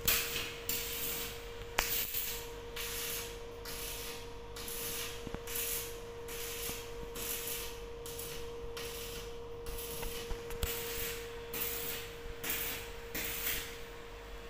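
Electric arc welding on the steel bars of a lift cage: a hissing crackle in short bursts about once a second as the arc is struck and broken at the joints.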